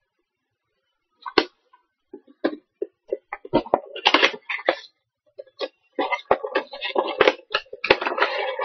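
A blind-box miniatures package being opened and handled: sharp clicks and crinkles starting about a second in, turning into near-continuous crinkling in the last few seconds.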